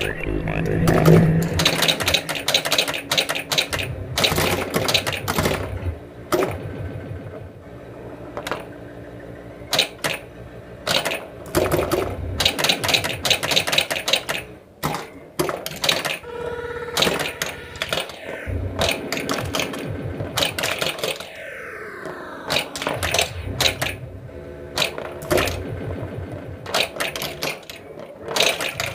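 1980 Williams Alien Poker pinball machine in play: rapid clatter of pop bumpers, solenoids and the ball striking targets, mixed with the machine's electronic sound effects, including several falling sweeps in pitch past the middle.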